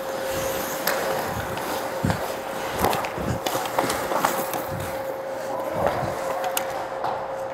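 Ice hockey play around the net: skate blades scraping the ice, with several sharp clacks of sticks and puck, over a steady hum.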